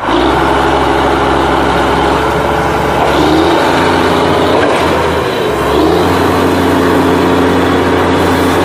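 A heavy truck engine running steadily, starting abruptly, with slight rises in pitch about three and six seconds in.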